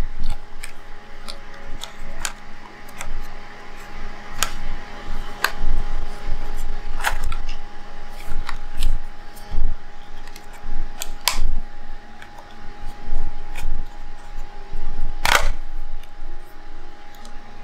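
Sony A7R camera body being disassembled by hand with small tools: irregular light clicks and taps of plastic and metal parts, over a faint steady tone.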